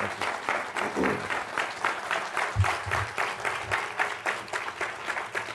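Lecture audience applauding steadily as a speaker is welcomed to the podium, with a few low thuds about halfway through.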